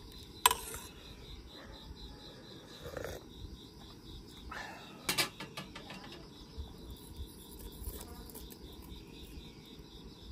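Crickets chirping in a steady pulsing trill, with a few short splashes and clinks of a ladle in a stainless pot of rice and water. The sharpest clink comes about half a second in.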